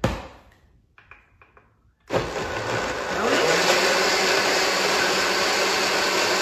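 Countertop blender: a thump as the lid is pressed onto the jug, then about two seconds in the motor starts and runs at high speed, getting louder about a second later. It is puréeing a thick milk smoothie with Brazil nuts, dates and pear.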